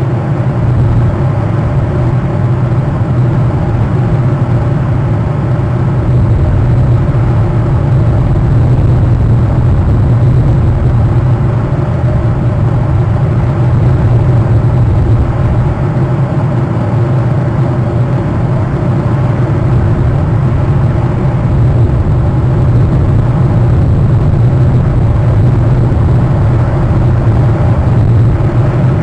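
Steady, loud, low drone with a humming tone in it, unchanging throughout.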